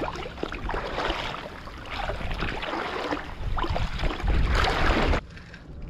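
Shallow seawater sloshing and splashing around wading legs in irregular surges, cutting off abruptly near the end.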